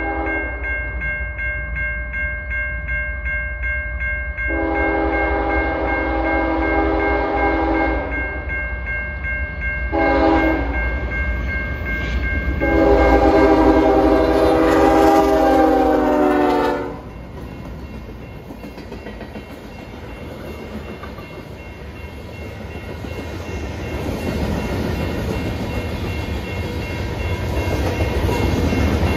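Diesel freight locomotive horn sounding chord blasts: a long one, a short one, then another long one. After that the train rumbles past with wheels clattering on the rails, growing louder near the end.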